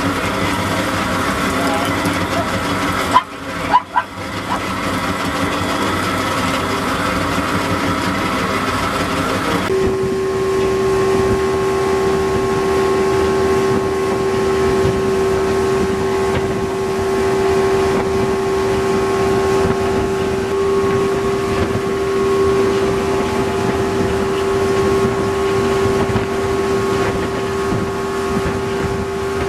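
Boat engine running steadily at constant speed, with a short break and two sharp knocks about three seconds in; from about ten seconds in its hum settles into one strong, steady pitch.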